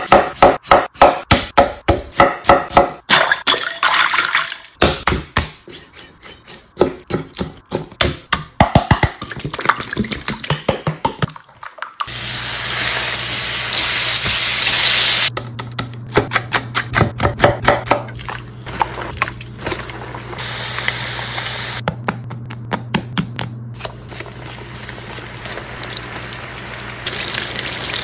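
Chef's knife chopping through peeled raw potato onto a wooden cutting board, a quick run of sharp chops about two a second. Then bacon sizzling in a stainless steel pan and chicken pieces bubbling as they deep-fry in oil, with more sharp strokes in between and a steady low hum under the frying.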